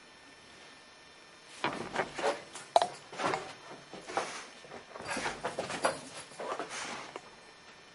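A puppy scuffling and playing with a plush toy: irregular scrapes, knocks and sharp clicks of paws and body against the floor and the side of a wooden box. These begin about a second and a half in and die away near the end.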